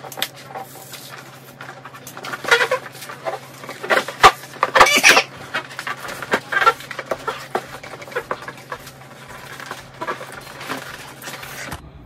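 Packaging of a trading-card collection box being opened: irregular crinkling and tearing in short bursts, loudest around the middle.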